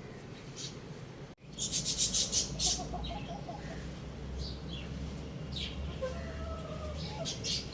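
Birds chirping in quick runs of short, high chirps that start suddenly about a second and a half in, with a few lower short calls in between over a steady low hum.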